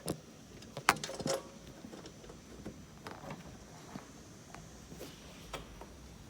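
Scattered clicks and knocks of a caravan water-tank cradle and its bolts being handled into place, the sharpest about a second in.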